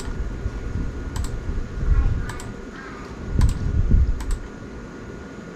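Clicking and tapping on a computer keyboard, with a few sharp paired clicks about a second apart and some dull knocks of handling.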